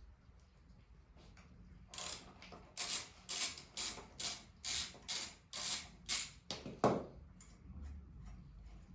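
Ratchet wrench worked back and forth in quick strokes, about two a second for some five seconds, with a heavier stroke at the end, as a fastener is undone on the scooter.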